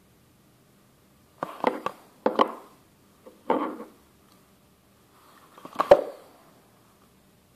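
Handling noise from a plastic phone wall charger being turned over in the hand: four short clusters of clicks and knocks spread over a few seconds, the last one the loudest.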